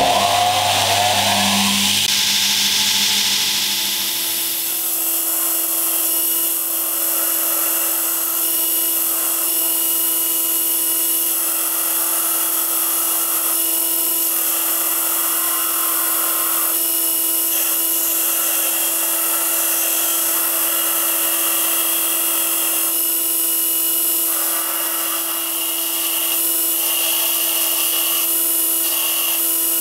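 Bench belt grinder running with a steady whine and hiss as the steel of an old axe head is ground on its abrasive belt, throwing sparks. The grinding swells and fades every few seconds as the head is pressed on and eased off the belt.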